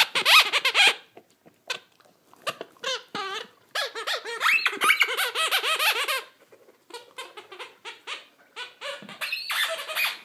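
Rubber squeaky ball squeezed over and over in a dog's jaws, squeaking in bursts, with the longest run of quick squeaks about four to six seconds in.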